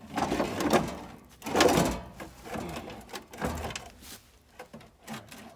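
A heavy battery being slid and set into a backhoe's battery box: two loud stretches of scraping and rubbing, then lighter knocks as it is shifted into place.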